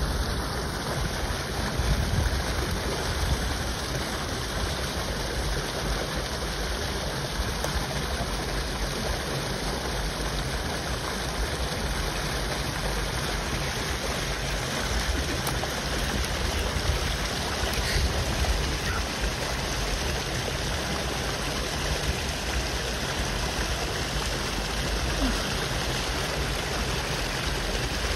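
Steady rushing of a muddy, rain-swollen river, with the splashing of a hooked carp being fought and netted at the bank mixed in.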